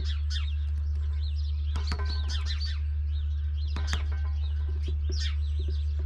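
Small birds chirping and calling in quick short notes, mixed with sharp irregular clicks or taps, over a steady low hum.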